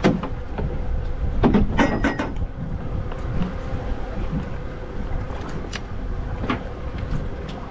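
Wind and sea noise aboard a small fishing boat on open water, with a steady faint hum. A few sharp knocks and clatters about one and a half to two seconds in, and another near six and a half seconds, from gear being handled on the deck.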